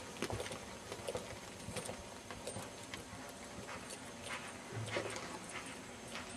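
Hoofbeats of an Oldenburg gelding cantering on sand arena footing: soft, faint, irregular thuds.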